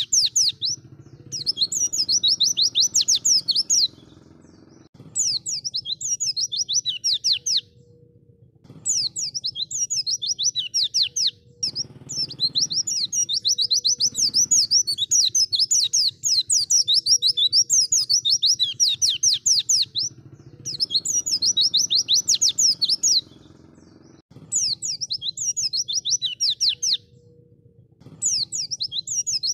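White-eye (pleci) singing: fast, high twittering phrases a few seconds long, repeating with short pauses, over a faint low hum.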